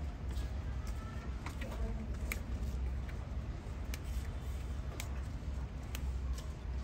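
Fresh leaves being plucked by hand from their stems: sparse crisp snaps about once a second, with leafy rustling, over a steady low hum.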